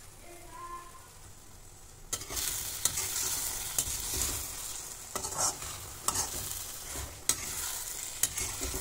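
A metal slotted spatula stirring mashed eggplant (baingan bharta) in a hot, oily wok, starting about two seconds in. Steady sizzling, with the spatula clicking and scraping against the pan roughly once a second. The oil has separated from the mash, the sign that the bharta is fully cooked.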